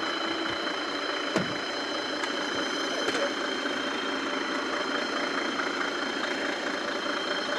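Heavy diesel machinery engine running steadily, with a sharp knock about a second and a half in and a steady high whine over it.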